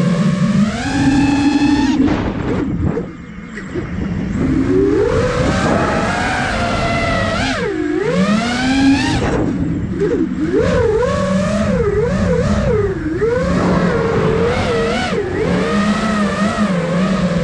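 Five-inch FPV freestyle quadcopter (iFlight Nazgul Evoque F5) heard from its onboard camera: the brushless motors and propellers whine, the pitch swooping up and down with the throttle. The sound drops away briefly about two seconds in as the throttle is cut, then returns, with a deep dip and climb about eight seconds in and quick up-and-down pitch changes after it.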